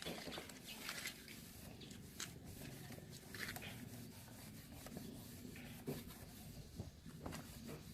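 Faint rubbing and light scraping on a plastic headlight lens, broken by scattered small clicks and knocks.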